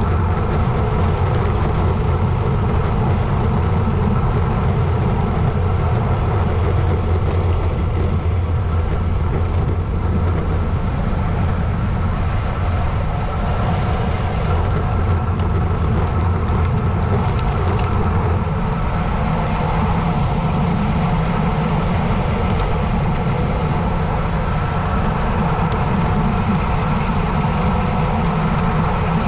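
Steady wind roar on the camera microphone, mixed with the hum of a road bike's tyres on asphalt, while descending at speed.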